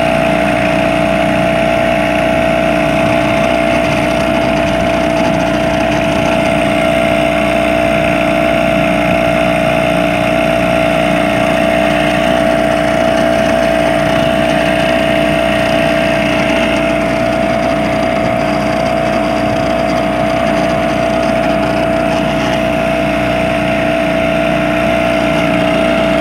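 A small wooden fishing boat's engine running steadily under way, holding one unchanging pitch throughout.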